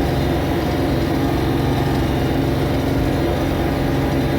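Tractor engine running steadily under load while plowing snow, heard from inside the cab; its low note shifts a little right at the start.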